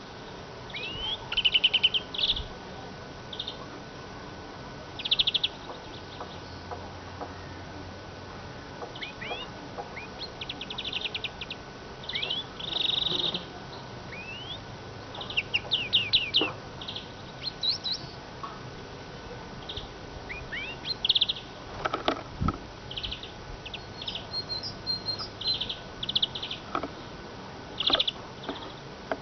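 Eurasian siskin singing: phrases of rapid high twittering and buzzy trills, one following another with short breaks.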